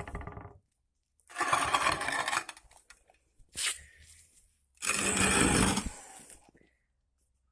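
Steel pieces being handled, with three rough bursts of metal scraping and clattering: two longer ones of about a second each and a short one between them.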